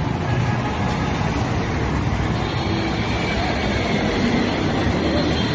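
Steady city road traffic: motorcycles, scooters, auto-rickshaws and buses running past, a continuous din of engines and tyres.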